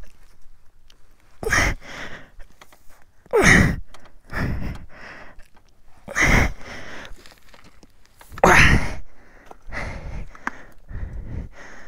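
A man's heavy, forceful breaths and grunts of effort, one every second or two, as he strains to pull his foot out from under a motorcycle stuck in mud.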